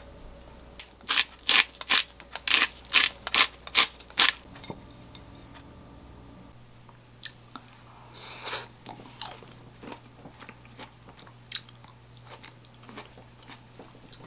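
A wooden spatula scraping and knocking fried rice out of a frying pan into a ceramic bowl: a quick run of sharp scrapes and knocks in the first few seconds. After that come softer, scattered clinks of a spoon on the bowl and chewing.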